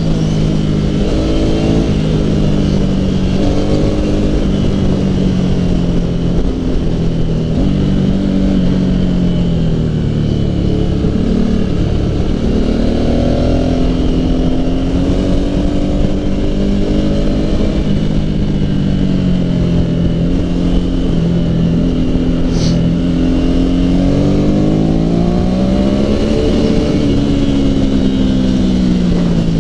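Suzuki Bandit 600 inline-four engine and exhaust under way. The engine note climbs and falls again and again as the rider accelerates and backs off through the gears, over a steady rush of wind.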